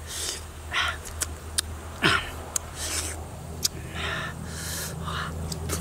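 Close-up eating sounds: langsat fruit peeled by hand and its flesh chewed and sucked with chili salt, a run of short wet smacks and sharp clicks over a low steady hum.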